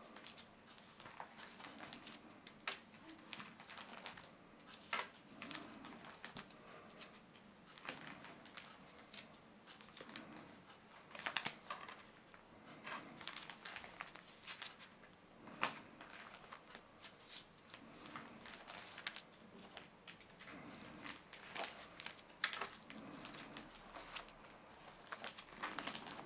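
Clear plastic sleeve pages of a banknote album crinkling as they are turned by hand, in a run of irregular rustles and short crackles.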